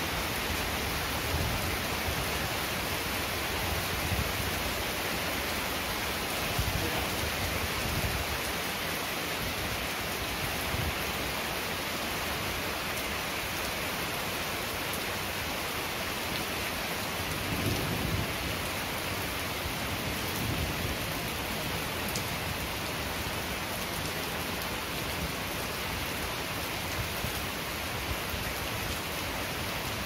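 Steady heavy rain pattering on garden plants and paved steps, a constant even hiss. A few soft low rumbles swell under it, the clearest about eighteen seconds in.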